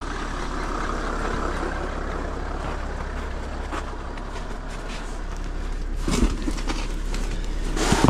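A vehicle engine idling with a steady low hum, and a few knocks near the end as cardboard parcels are set down in the van.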